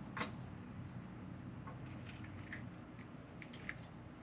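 Quiet workshop room tone: a low steady hum with a few faint, light clicks scattered through it.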